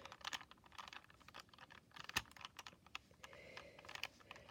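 Plastic Rubik's Cube being handled and turned in the hands: faint, irregular clicking and clacking, with one sharper click about two seconds in.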